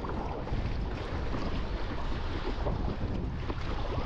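Wind buffeting the microphone over a choppy sea, with water splashing against an inflatable kayak as it is paddled.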